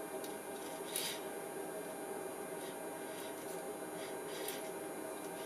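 Steady electrical hum made of several tones from mains-powered test-bench equipment, with a faint rustle about a second in and a few light clicks.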